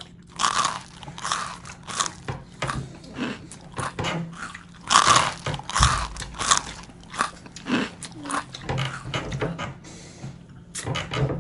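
Close-up biting and chewing of crispy fried chicken wings: irregular wet crunches one after another, loudest about five to six and a half seconds in.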